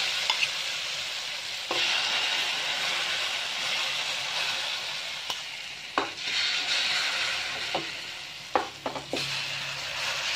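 Cha-om shoots frying in hot oil in a wok, a steady sizzle with a few sharp clicks of a metal spoon against the pan. About six seconds in the sizzle surges as beaten duck egg is poured over the greens.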